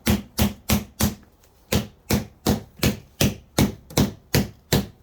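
Rapid, even taps, about three a second with one short break about a second in, as the mesh edge is tapped into the groove of a rack rail to lock it in.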